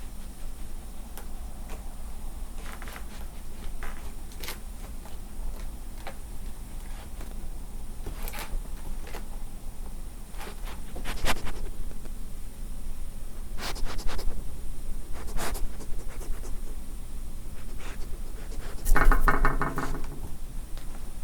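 Scattered scrapes, rubs and sharp clicks close to the microphone, with a brief, loud pitched sound, a squeak or call, about nineteen seconds in.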